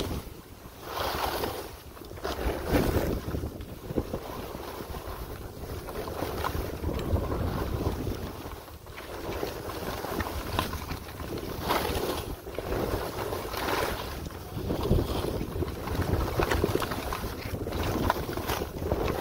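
Wind buffeting the microphone of a skier moving downhill, with the swish of skis through fresh snow swelling and fading in waves with the turns.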